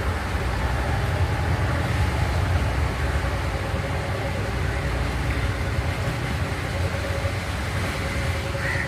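A passing boat's engine running steadily, a low drone with a faint hum held at one pitch.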